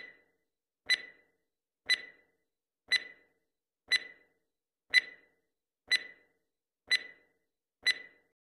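Countdown-timer sound effect: a sharp tick with a short, high ringing tone, once a second, nine times, as the on-screen stopwatch counts down from nine to one.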